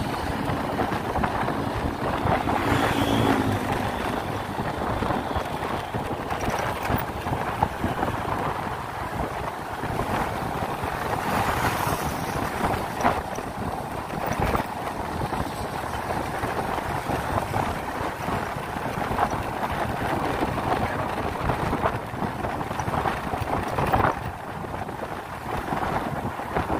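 Wind buffeting the microphone over the steady running of a motor scooter's engine and tyre noise while riding on the road. A few short knocks stand out, and a passing engine note briefly rises above the noise about three seconds in.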